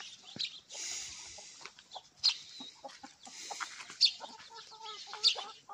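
Farmyard hens clucking while they feed, with many short scattered calls and three sharp, loud short sounds about a second or so apart.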